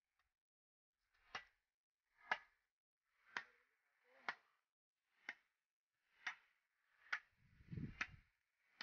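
Short, sharp ticks or knocks at an even pace of about one a second, with a low rumble near the end.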